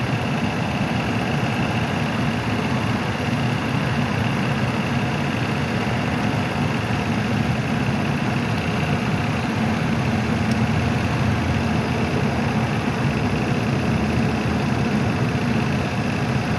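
Car engine idling steadily with the air-conditioning compressor running.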